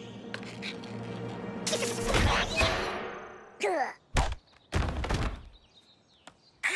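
Cartoon slapstick sound effects over background music: a long clattering crash, a falling-pitch squeal, then a few heavy thuds.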